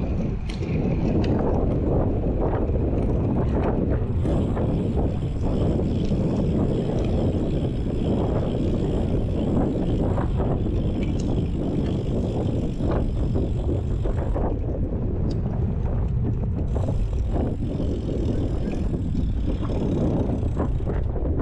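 Wind buffeting the microphone of a bike-mounted action camera over road-bike tyres rolling on tarmac. From about four seconds in, with the rider coasting and not pedalling, a thin high whir of the rear freewheel joins it, dropping out briefly about two thirds of the way through.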